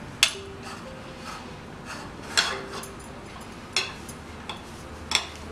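Four sharp clicks or knocks, a second or more apart, against plastic as hands roll mashed-potato filling into a ball over a plastic bowl.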